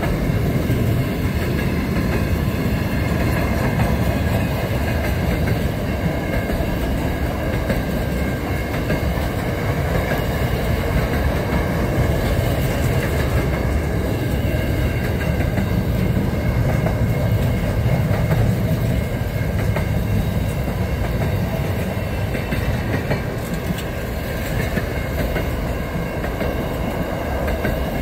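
Pacific National freight train passing close by: a steady, loud rumble and clatter of wagon wheels on the rails, with a faint high ringing above it.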